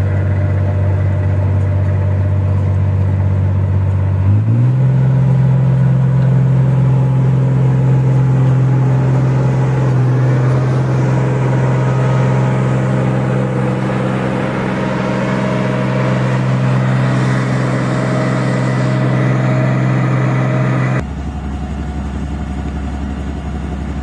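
Tracked rice combine harvester's diesel engine running steadily, stepping up in pitch about four seconds in as it speeds up, then holding the higher speed. Near the end the sound switches abruptly to a quieter, deeper engine hum.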